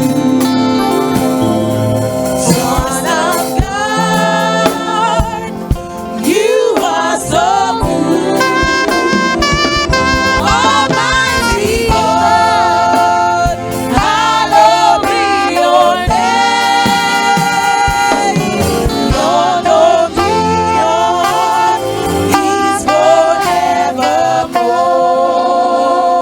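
Gospel music: voices singing with wavering, held notes over instrumental backing, steady and loud throughout.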